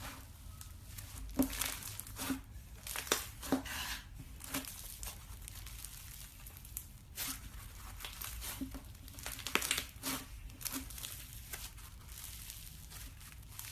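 Slime being squeezed and stretched by hand, making irregular crackles and pops.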